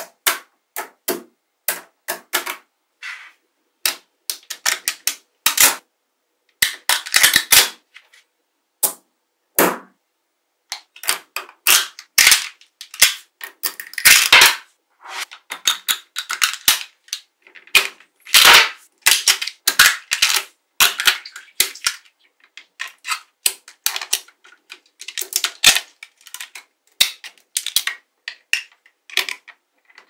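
Small magnetic balls clicking and clattering as they snap onto one another, in irregular runs of sharp clicks with short pauses between.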